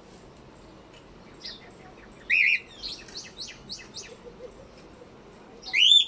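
Cockatiels chirping: a loud call about two seconds in, a quick run of short chirps after it, and a loud rising whistle near the end.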